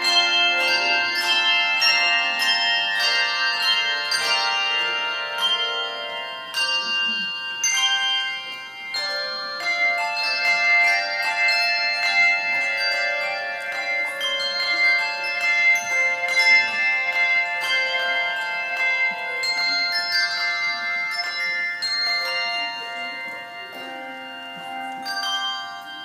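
Handbell choir ringing a piece: several bells struck together in chords, each note ringing on after the strike, growing softer near the end.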